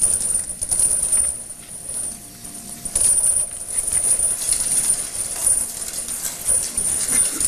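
Scuffling and clattering of a crowd of prisoners pressing in and grabbing at food: irregular knocks, clicks and shuffling over a steady high hiss.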